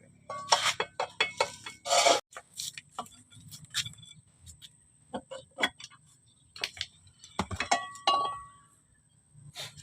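Metal hand tools clinking and knocking on manual transmission parts during disassembly: an irregular series of sharp metallic taps. A few louder strikes ring briefly, about half a second, two seconds, and seven to eight seconds in.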